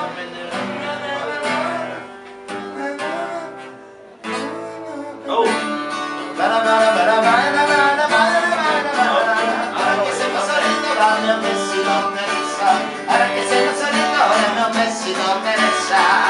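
A man singing to his own strummed acoustic guitar. The guitar plays alone at first, with a short break about four seconds in; the voice comes in about five seconds in and carries on over the strumming.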